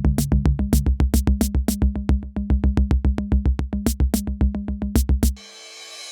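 Electronic ringtone jingle: a fast drum-machine beat with deep bass and synthesizer, cutting off sharply about five seconds in. A softer new tune then swells in near the end.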